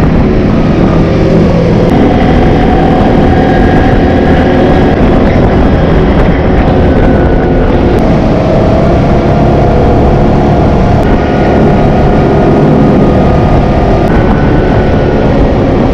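ATV engine running steadily while riding along at road speed, its pitch rising and falling slightly with the throttle.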